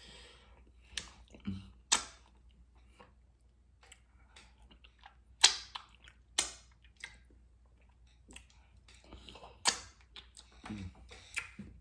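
Chewing and wet mouth smacks of someone eating cocoyam fufu with achu soup, with a handful of sharp smacks; the loudest comes about five and a half seconds in.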